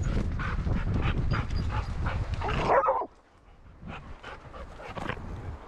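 Two dogs meeting and playing, one giving a short whining yip about three seconds in. Under it is heavy rubbing and wind noise from a camera strapped to a moving dog. After the yip it goes quieter, with light scattered thuds of paws on the forest floor.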